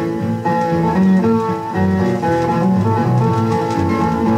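Country string band playing an instrumental break, with steel guitar over strummed acoustic rhythm guitar and bass, no singing. It is heard from an old 1947 acetate radio transcription disc.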